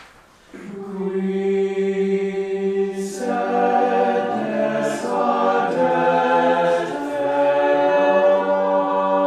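Choir singing sustained chords. It begins about half a second in, and more voices join about three seconds in, with short hissing consonants roughly every two seconds.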